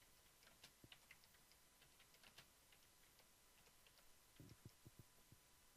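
Faint computer keyboard typing: a scattered run of light key clicks, then a few soft low knocks about four and a half seconds in.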